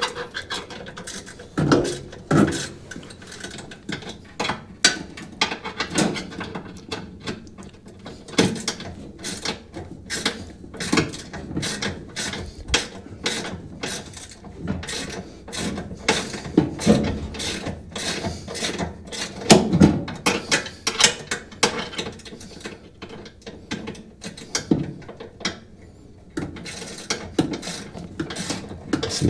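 Ratchet wrench clicking in quick runs as bolts on a Speed Queen washer's brake assembly are turned, with a few louder metal knocks among the clicks.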